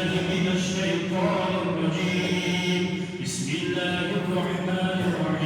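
A man reciting the Quran in a slow, melodic chant, holding long notes.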